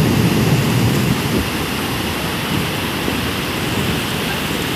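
Heavy monsoon rain pouring down in a steady, loud hiss, with a low rumble during the first second or so.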